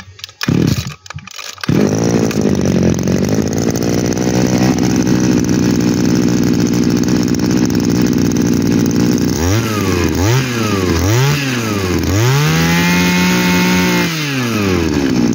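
Shindaiwa 230 brush cutter's small two-stroke engine being pull-started: a few yanks of the recoil cord, and it catches within about two seconds and idles steadily. From about nine seconds in it is revved in three quick blips, then held at high revs for about two seconds and let drop, and revved again near the end.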